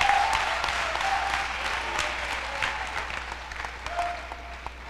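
Audience applauding a graduate, a dense patter of hand claps that dies away over a few seconds.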